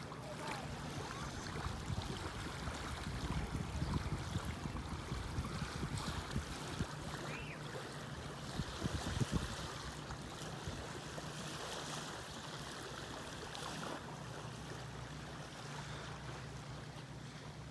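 Small waves lapping gently on a sandy shore, with wind gusting on the microphone as low, uneven rumbles.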